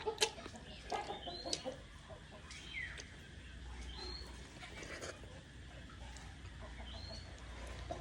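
Chickens clucking and giving short high chirps in the background, a few separate calls over several seconds, with small clicks of chewing and eating close by.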